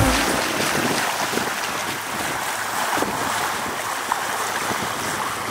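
Steady wash of water and small waves around a sailboat, with wind.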